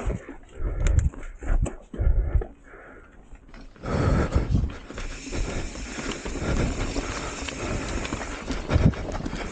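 Hardtail mountain bike riding down a rough dirt forest trail: tyres rolling over dirt, roots and rocks, with separate thumps and knocks from the bike during the first few seconds. From about four seconds in this turns into a steady rushing noise of tyres and wind.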